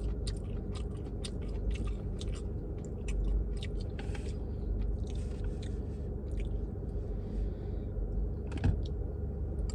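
A person chewing food close to the microphone: many small, irregular mouth clicks over a steady low hum.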